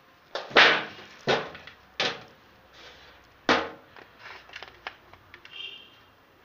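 Several loud, sharp knocks, then a run of lighter clicks and clatters, as french fries are served onto an enamel plate of fried sausages and meat.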